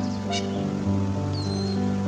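Background music of slow held chords, with a short bird chirp about a third of a second in and a brief high whistled note near the end.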